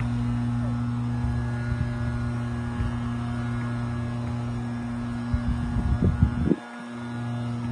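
A steady low electrical hum, with a cluster of short thumps about five to six and a half seconds in, then a brief drop in level.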